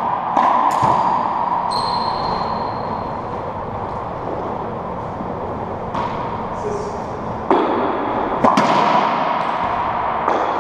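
Racquetball being hit by racquets and smacking off the walls and floor of an enclosed court: sharp cracks a second or more apart, each with a long hollow echo.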